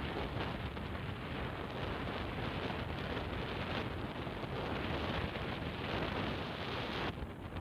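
Wind rushing and buffeting over the microphone of a camera on a moving motorcycle, a steady heavy rush that drowns out any engine note; it eases about seven seconds in.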